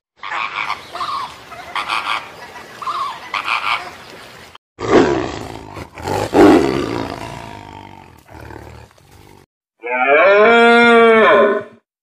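Flamingos calling in a series of short honks, then a tiger's loud roar that fades away, then a long, steady bleating call from a deer near the end.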